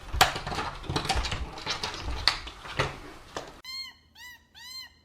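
Rustling and scuffling with a few knocks, then, from about three and a half seconds in, a kitten mewing in short, rapid, high calls, about two a second.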